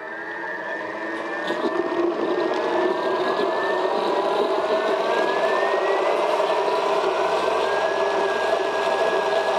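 Electric blender motor running under load, puréeing squash velouté into a smooth cream, its whine rising slowly in pitch as it speeds up.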